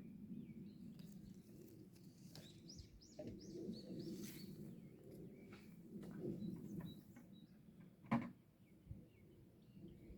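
Faint birdsong: scattered short chirps and quick sliding calls over a low, steady background noise, with one sharp click about eight seconds in.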